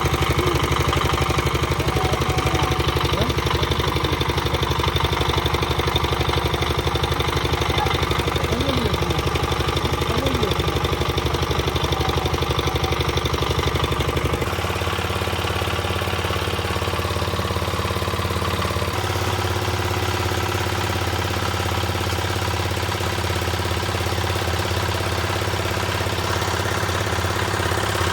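Concrete mixer's engine running steadily with a fast, even beat. About halfway through its note drops and it gets a little quieter, then the low hum shifts again a few seconds later.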